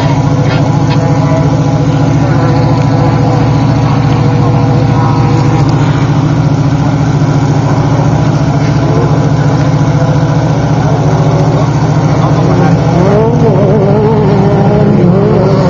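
Off-road race vehicle's engine running loud and steady, with a few brief wavers in pitch near the end.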